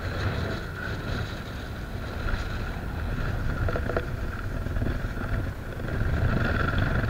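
Wind buffeting the microphone as a steady low rumble, with a few faint clicks about four seconds in.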